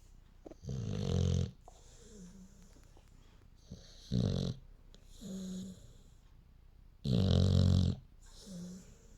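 A dog snoring in its sleep: three loud snoring breaths about three seconds apart, each followed about a second later by a softer, shorter breath with a faint hum.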